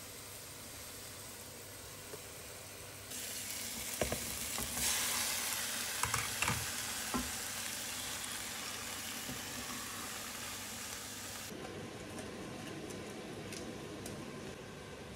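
Meat for adobo frying and sizzling in a pan, louder after about three seconds, with a few sharp knocks of a utensil against the pan as it is stirred.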